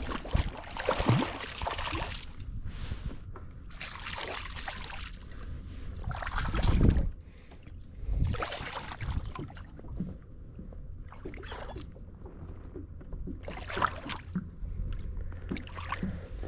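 Water splashing and sloshing around a kayak in irregular bursts while a hooked bass is fought to the boat. A steady low rumble of wind on the microphone runs underneath.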